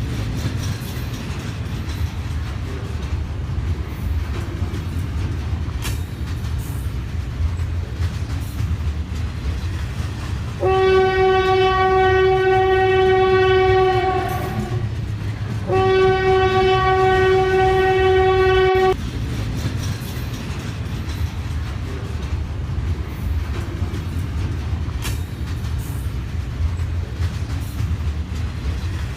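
Running train's steady low rumble, with two long locomotive horn blasts in the middle, each lasting about three to four seconds with a short gap between them.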